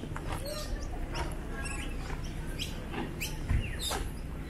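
Wild birds chirping and calling: many short chirps and quick whistles, one of them falling in pitch, over a steady low rumble, with a dull thump about three and a half seconds in.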